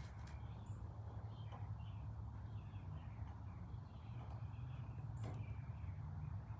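Steady low hum with faint bird chirps and a couple of light clicks.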